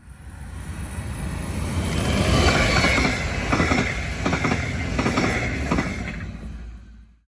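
A train passing by, swelling up and fading away again, with a few sharp clicks of its wheels over rail joints as it goes by.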